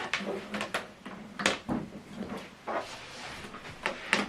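Handling noise as an optical (TOSLINK) cable plug is pushed into the optical port on the back of a TV: a series of light clicks and knocks, about six, spread irregularly.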